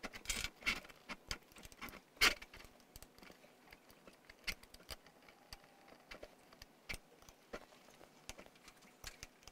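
Small screws and a 2 mm hex driver being worked into a Turnigy Fabrikator 3D printer's print platform: irregular light clicks and taps of metal and plastic, the loudest about two seconds in.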